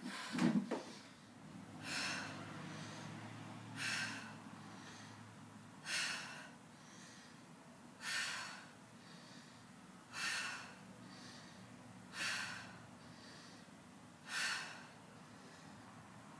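A woman's hard breathing during a dumbbell chest press on an aerobic step: a loud forceful exhale about every two seconds, one per rep, with a fainter inhale between. A couple of thumps in the first second.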